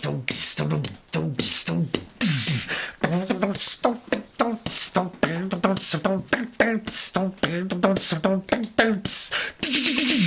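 A man beatboxing: a quick, steady rhythm of mouth-made hissing and clicking hits, like hi-hats and snares, mixed with short low hummed notes.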